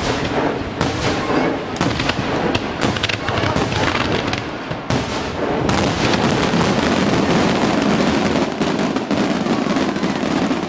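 Fireworks bursting in quick succession, with sharp bangs and crackling. The barrage grows denser and louder in the second half.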